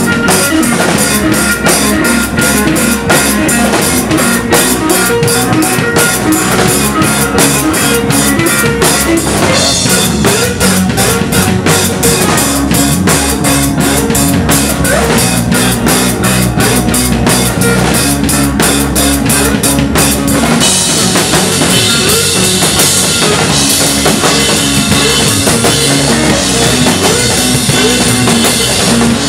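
Live math rock band playing loud on drum kit and electric guitar, with fast, busy drumming. About twenty seconds in, the separate drum strokes give way to a steady wash of cymbals.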